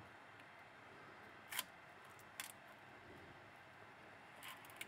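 Quiet room hiss with a few short, sharp clicks and scrapes of hard objects being handled: one about a second and a half in, another a second later, and two close together near the end.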